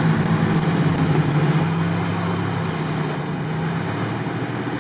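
Engine of a lifted Toyota 4Runner off-roader running at a steady pitch as it drives through the marsh. The hum changes near the end.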